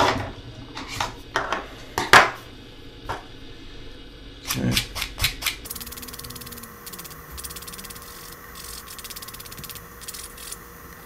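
A file scraping the edge of a small plastic 3D-printed part to clean off what is left of the brim: several separate strokes at first, then a faster, steady rasping from about six seconds in.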